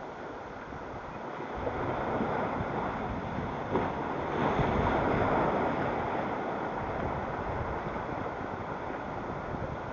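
Sea surf washing on the shore with wind buffeting the microphone; a wave swells louder near the middle and then falls back.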